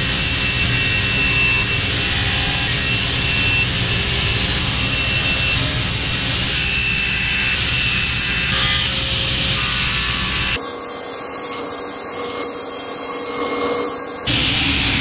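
Table saw running with a steady blade whine while cutting thin wood strips. About ten seconds in, the sound turns thinner and hissier for a few seconds, and the full saw sound returns near the end.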